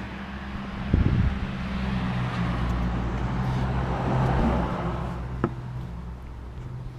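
A knock about a second in, then a steady low engine hum with a rush of noise that swells and fades away, like a motor vehicle running or passing by.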